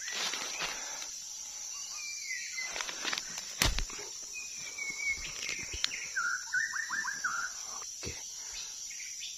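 White-rumped shama singing: a few clear whistled notes sliding around one pitch, then a quick run of notes about two-thirds of the way through. Under it runs a steady high insect drone, and a sharp knock comes about a third of the way in.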